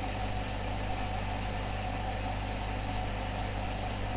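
Steady electrical hum with a constant hiss: the background noise of the microphone recording, unchanging throughout.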